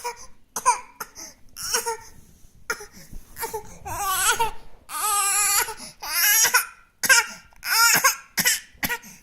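Baby fussing: a run of short whimpers and cries, with longer cries about four and five seconds in and again near the end.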